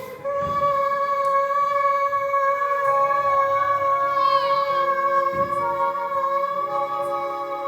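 A young singer holding one long note on the final word of a musical-theatre song, over a recorded backing track.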